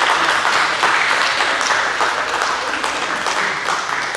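Audience applauding: a dense, steady patter of hand claps that eases off slightly near the end.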